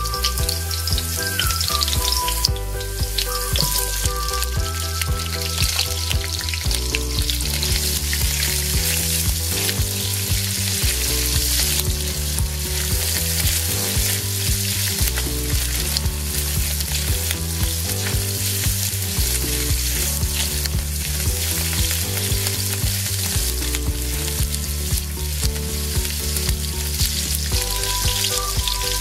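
Garlic and sliced onions sizzling and crackling in hot oil in a frying pan, stirred now and then with a silicone spatula.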